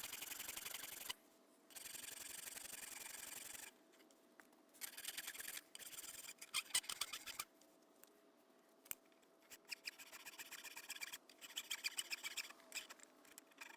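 Dense oak knife handle being worked down by hand with an abrasive tool: rapid scraping strokes in bursts a second or two long, with short pauses between.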